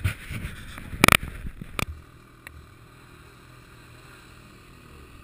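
Knocks and rustling right against the camera microphone for about two seconds, with a sharp loud burst about a second in. After that comes a faint, steady drone of snowmobile engines.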